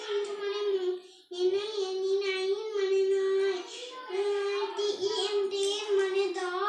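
A young child reading a lesson aloud in a sing-song chant, holding almost one pitch throughout, with short breaks about a second in and near four seconds.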